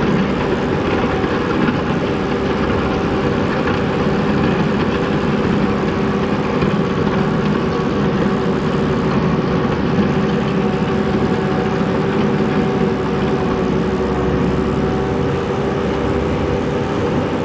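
Skid steer engine running steadily at high revs while pushing a snow plow.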